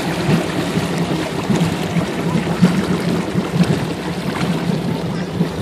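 Motorboat engine running at a steady low towing speed, a constant hum under the rush of churning wake water behind the stern.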